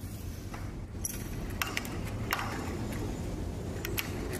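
Several sharp metallic clinks and knocks as a steel drill chuck is handled and fitted into the lathe, over a steady low hum.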